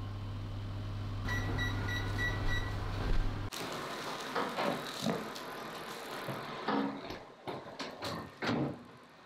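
A steady low hum with a quick run of short high beeps for the first three seconds. After a sudden cut, freshly baked bread rolls sizzle and crackle in hot oil on a metal baking tray, the popping thinning out toward the end.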